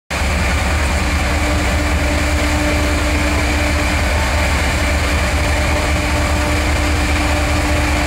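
Class 68 diesel-electric locomotive 68021 'Tireless', its Caterpillar C175-16 V16 diesel running steadily: a loud, deep rumble with constant whining tones over it.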